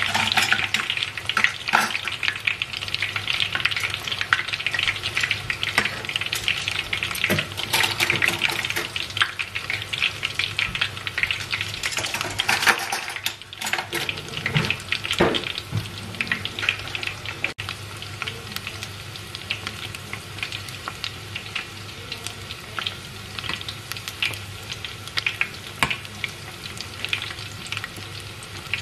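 Bread squares topped with minced chicken deep-frying in a pot of oil over low heat: a dense, steady crackle and sizzle that eases a little about halfway through.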